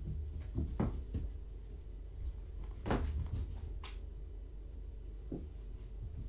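Kittens romping and jumping, making scattered soft thumps and knocks with their paws on the floor and play furniture: a cluster of them about a second in, a louder one about three seconds in, and another near the end, over a steady low hum.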